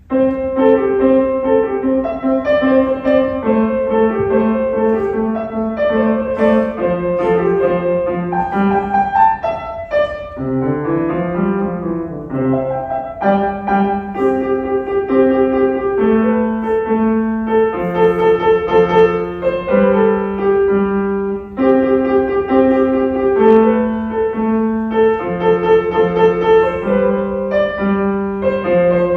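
Solo piano played by a six-year-old beginner: a simple melody over repeated lower notes, starting abruptly at the outset, with a quick run of notes up and back down about ten seconds in.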